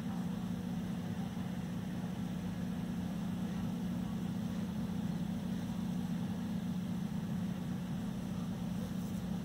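A steady low mechanical hum that never changes, over a faint even hiss.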